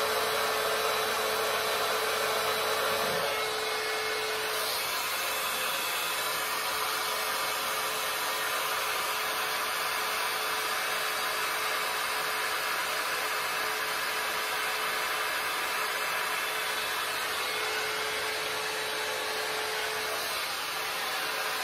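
Babyliss hot air brush running steadily: a constant rush of blown air with a thin motor whine. The whine fades about four seconds in and returns briefly near the end.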